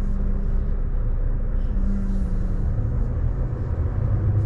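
Semi-truck's diesel engine running at low speed during a slow parking manoeuvre, a steady low rumble.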